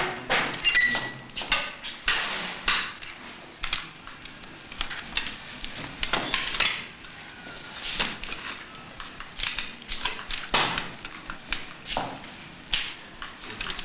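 Irregular clanks and knocks of a metal wheelchair and parallel bars being handled, footrests and frame parts moved while a paralysed patient is helped to get ready to stand.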